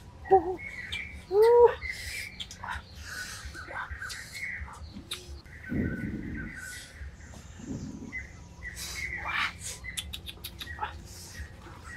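Forest birds chirping and calling, with two loud rising-and-falling calls in the first two seconds. A person blows on the wood fire under the cooking pot, two low rushing puffs about six and eight seconds in, amid the light taps of a knife slicing on a wooden board.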